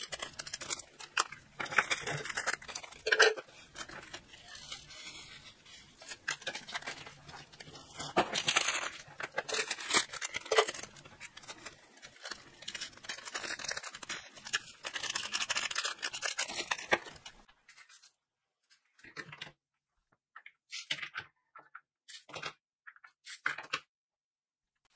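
Plastic bags of diamond-painting drills crinkling while the tiny resin drills rattle and pour into small plastic storage containers. After about 17 seconds the crinkling stops, and a few separate short clicks and taps follow.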